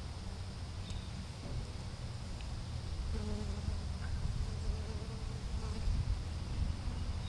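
A flying insect, bee or fly, buzzing close by, its hum wavering in pitch and strongest from about three to six seconds in, over a low steady rumble.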